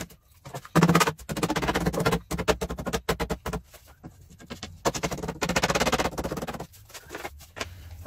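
Rubber mallet tapping thin wooden shelf panels into the slots of a wooden rack: several runs of rapid knocks with short pauses between them.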